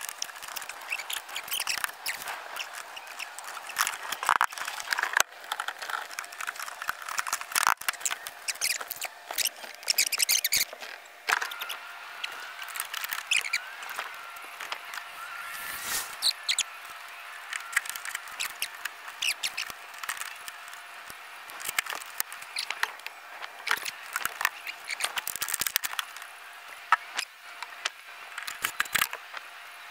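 Scratching, rubbing and clicking as a car headliner and its roof trim are worked into place by hand, with a few short squeaks.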